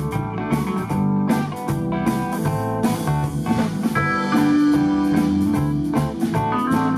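Live band playing an instrumental blues-rock number: electric guitars over bass guitar and a steady drum beat, with one long held note a little past the middle.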